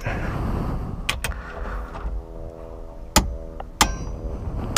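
A long socket-wrench bar working on a car's steering-wheel hub nut while it is tightened: handling noise and a few sharp, irregular metallic clicks and knocks, with a faint steady hum in the second half.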